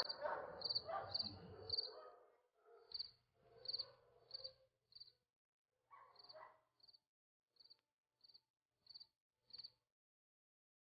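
Cricket chirping, short high chirps repeating about twice a second, faint, stopping near the end. A few faint soft sounds lie under it.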